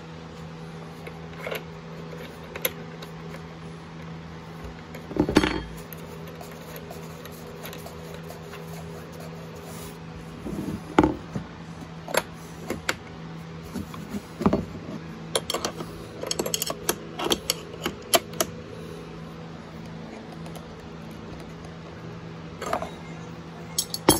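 Metal clinks and clicks of wrenches and a router chuck being handled and fitted at the router's nose: scattered single clinks, a louder knock about five seconds in, and a quick run of them in the middle, over a steady low hum.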